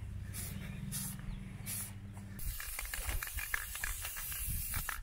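Aerosol can of Krylon spray paint hissing as it sprays black paint: a few short bursts over a low wind rumble on the microphone, then a long continuous spray from about halfway through.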